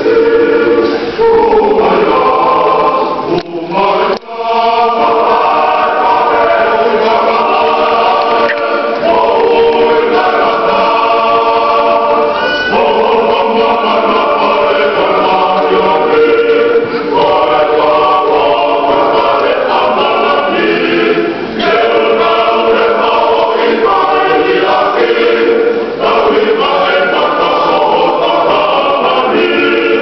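Choir singing a hymn in parts, with a short break between phrases about four seconds in.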